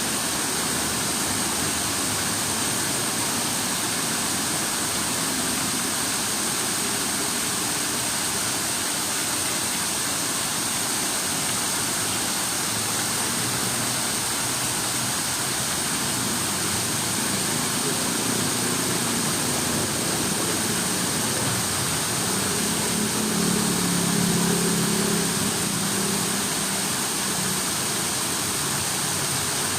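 Steady rush of flowing water. A low engine hum, like a passing vehicle, swells and fades about two-thirds of the way through.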